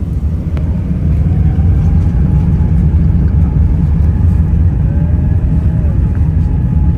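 Cabin noise of an Airbus A380 on its takeoff roll: a loud, steady low rumble from the engines at takeoff power and the wheels on the runway. It swells about a second in, with a faint whine gliding up in pitch.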